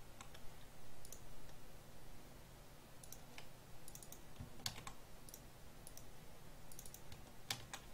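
Computer keyboard being typed on, scattered keystrokes and clicks in small clusters with pauses between them.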